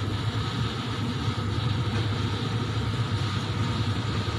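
A steady low machine hum, unbroken throughout.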